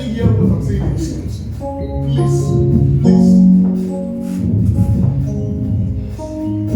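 Church worship music: held instrumental notes that change every half second to a second, with light percussion ticking along above them.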